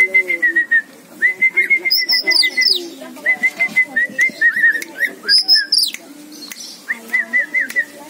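Oriental magpie-robin (kacer) singing: three runs of quick repeated notes, about four or five a second, with two higher whistles that slide steeply down, one about two seconds in and one just past the middle.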